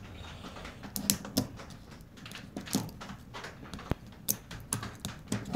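Irregular light metallic clicks and scrapes as a small retaining clip is worked off the main driven gear of a Ford locking hub.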